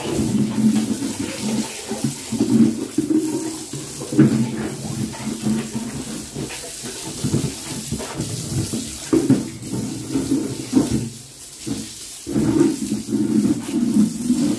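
Water jetting from a garden hose spray nozzle onto pigs and a wet concrete pen floor, a continuous splashing that swells and falls as the stream moves, easing off briefly about eleven seconds in.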